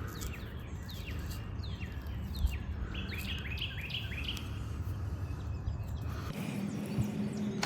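Songbirds chirping: rapid strings of short, sweeping chirps over a steady low rumble. About six seconds in, the rumble drops away and a steady low hum takes its place.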